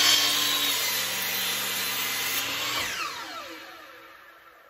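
Sliding compound miter saw running at full speed as its blade is lowered through a log. About three seconds in the motor is switched off and the blade winds down in a falling whine.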